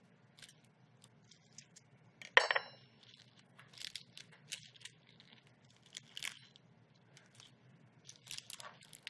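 Grilled fig leaves wrapped around a fish rustling and tearing as the wrapper is cut and pulled open by hand. There is one loud sharp clink of a utensil about two and a half seconds in.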